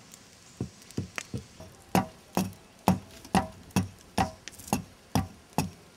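A run of sharp knocks, each ringing briefly, settling into a steady beat of about two a second.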